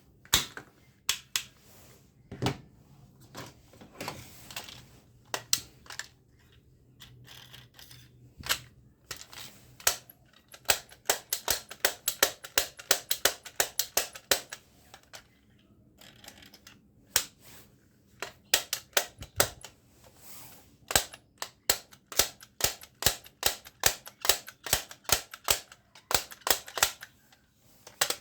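Plastic toy gun mechanism clicking and snapping: scattered single clicks, then two long runs of rapid clicks, several a second.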